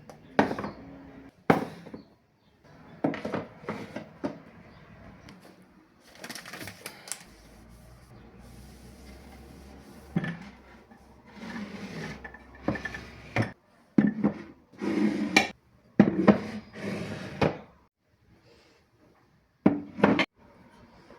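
Kitchen containers and pantry items being handled and set down on cupboard shelves: a run of irregular knocks and clatters, with a few brief silent gaps.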